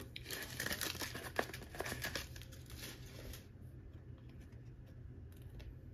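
Plastic packaging crinkling as trading cards are handled, busy for about three and a half seconds, then a few faint clicks.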